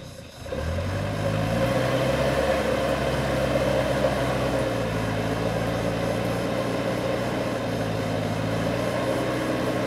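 Light truck's engine running hard under load as the truck tries to drive out of deep mud ruts, its pitch rising over the first second or two and then holding fairly steady.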